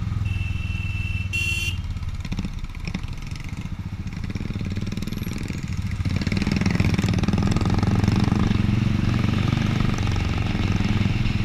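Royal Enfield Classic 350 single-cylinder engine running under way; it eases off for a few seconds, then pulls harder again about six seconds in. A short, high, steady tone sounds for about a second and a half near the start.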